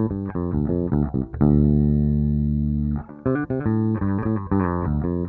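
Squier Deluxe Dimension Bass V five-string electric bass played with its onboard EQ's treble turned up: a quick run of plucked notes, a long held low note, then another quick run.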